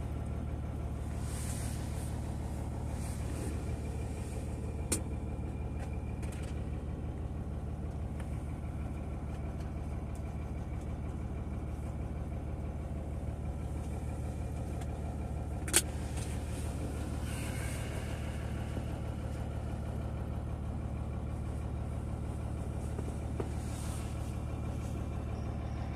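A steady low hum with two sharp clicks, one about five seconds in and a louder one about sixteen seconds in.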